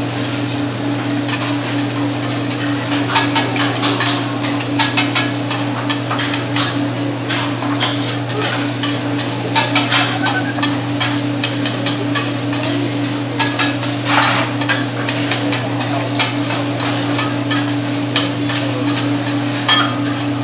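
Hibachi chef's metal spatulas clacking and scraping on the steel teppanyaki griddle: many quick, irregular strikes over a steady low hum.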